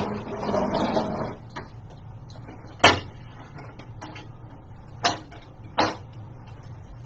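Cardboard bike box being handled and opened: a scraping rustle in the first second, then three sharp knocks spaced a couple of seconds apart.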